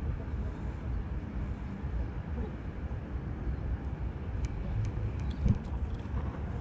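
Low, steady outdoor rumble with no clear pitch. A few faint sharp ticks come about four and a half to five and a half seconds in, and a single dull thump about five and a half seconds in is the loudest moment.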